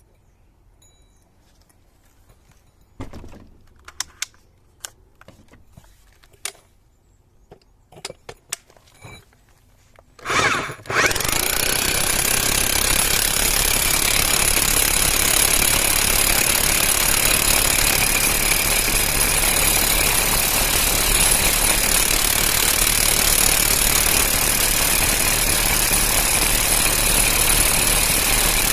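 Scattered handling clicks and knocks, then about ten seconds in a Hilti TE 76 ATC rotary hammer starts with a short burst and runs steadily and loudly: a test run of the tool after its repair and full service.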